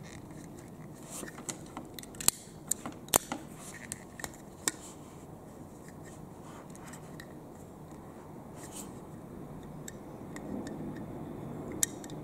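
Handling of a metal-bodied retractable utility knife as its slider and lever are worked: light scraping and rubbing with a handful of sharp metallic clicks between about two and five seconds in, and a couple more near the end.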